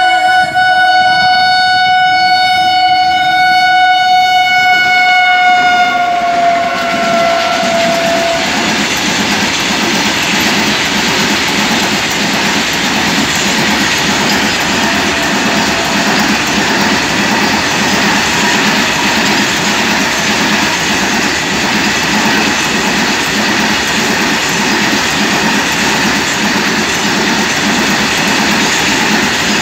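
Air horn of a WAG-9 electric locomotive sounding one long blast of about eight seconds, its pitch sagging slightly as it ends. Then comes the steady rumble and wheel clatter of a long freight train of hopper wagons rolling past.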